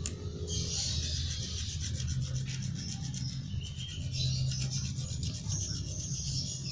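Hand file rasping back and forth in quick repeated strokes on a metal RC axle shaft, shaving a flat so that a tight-fitting new gear will slide on.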